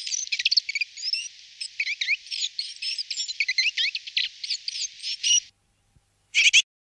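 Small songbird chirping in a rapid run of high, quick notes, which stops about five and a half seconds in; a brief burst of chirps follows near the end.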